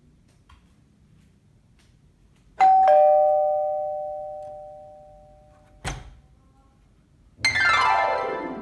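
Two-note ding-dong doorbell chime, a higher note then a lower one, ringing out and dying away over about three seconds. A sharp click follows. Near the end comes a sound that slides steeply down in pitch.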